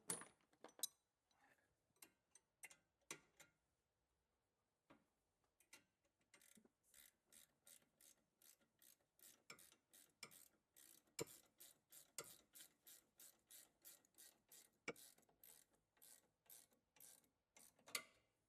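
Ratchet wrench clicking as a long bolt is run in: a few scattered clicks, then a steady run of about three clicks a second from about six seconds in.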